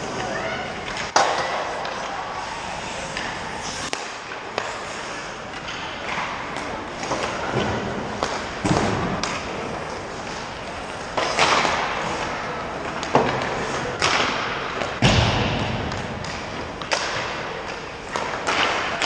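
Ice hockey rink sounds: skates scraping and carving the ice under a dozen or so sharp, irregular knocks of sticks and pucks, each one echoing in the rink.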